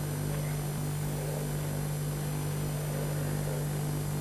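Steady low electrical hum holding one unchanging pitch, with a hiss underneath.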